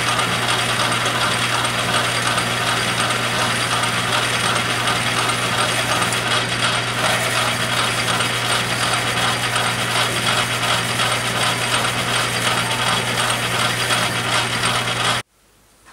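Metal lathe running under power, its gear train clattering steadily over a low motor hum. The sound cuts off abruptly near the end.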